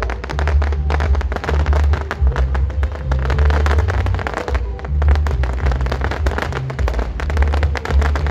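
Aerial fireworks crackling in a dense, rapid stream of pops, over loud music with a heavy, rhythmic bass line.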